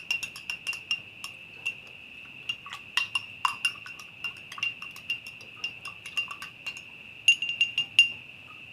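Metal spoon stirring a drink in a glass, clinking against the glass in quick irregular taps that stop about eight seconds in. A steady high insect trill runs underneath.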